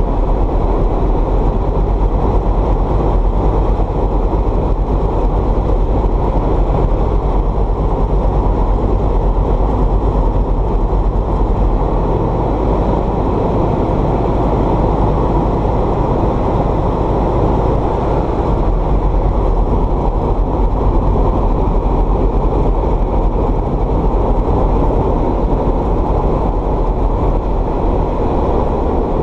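Steady, loud drone of a light aircraft's piston engine and propeller heard inside the cabin, unchanging throughout.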